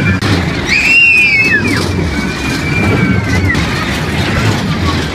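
Children squealing with delight on a spinning kiddie race-car ride: one loud rising-and-falling squeal about a second in, then fainter drawn-out ones, over the steady rumble of the ride.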